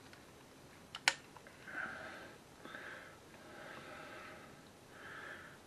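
Kitchen tongs give a single sharp click about a second in as a chunk of corned beef is lifted out of a crock pot of sauerkraut and juices. Several soft hissing sounds follow, each about half a second long.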